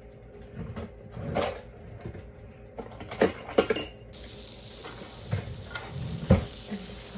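Kitchenware clinking and knocking: several sharp knocks of a bowl and utensils, the loudest about six seconds in. From about four seconds in there is a steady hiss of margarine sizzling in the frying pan.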